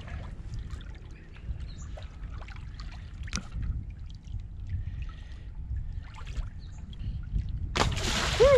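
Shallow river water sloshing and splashing around hands holding a striped bass in the water to revive it, with small scattered splashes over a steady low wind rumble. Near the end comes a loud splash, the fish kicking free.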